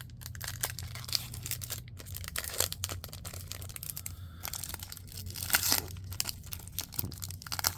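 Trading card pack wrapper crinkling and being torn open by hand, a run of scratchy crackles with a louder rip about five and a half seconds in.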